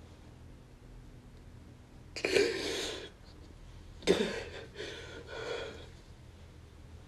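A man sobbing: one ragged, gasping sob about two seconds in, then a sharp sob a little after four seconds followed by two shorter sobbing breaths.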